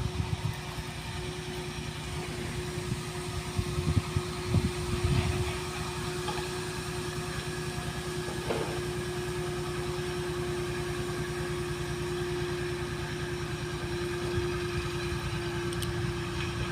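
An engine running steadily at idle, with a low, evenly pulsing rumble and a constant hum, and a few brief low thumps in the first few seconds.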